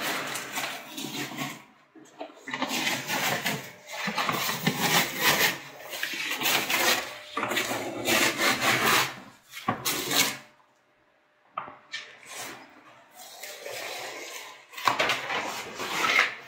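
Wallpaper being torn and peeled off a wall in long strips, the paper crackling and rustling as it is pulled and handled, with a brief pause about two-thirds through.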